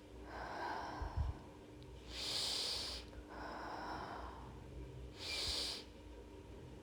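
A person taking slow, deep breaths in and out after a backbend, with two sharper, hissy breaths about 2 and 5 seconds in and softer breaths between them.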